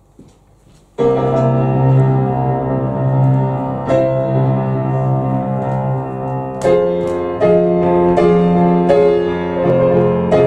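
Grand piano playing the instrumental introduction to a chanson: it comes in about a second in with a held low note under sustained chords, with new chords struck every second or so.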